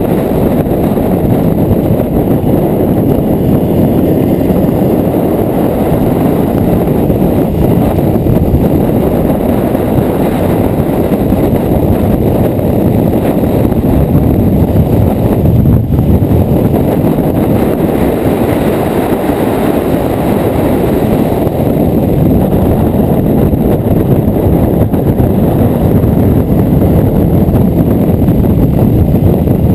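Wind buffeting a motorcycle-mounted camera microphone at road speed, over the running Honda CRF250L's single-cylinder engine. The noise is loud and steady.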